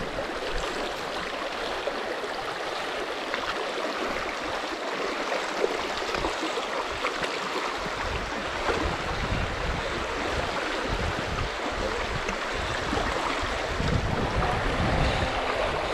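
Rushing stream water, a steady loud rush, with more low rumbling in the second half.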